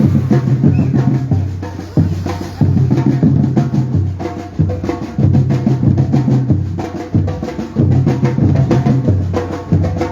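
Batucada percussion band playing: deep bass drums beating a steady repeating pattern under fast, sharp snare strokes.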